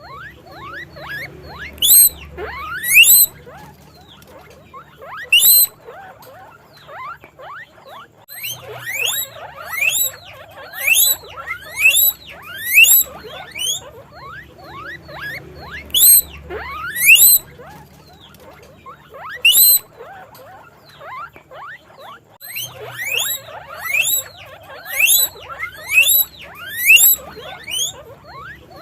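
Guinea pigs squeaking: loud, short, high-pitched calls repeated about once a second in runs, over a steady mass of quicker, fainter falling chirps.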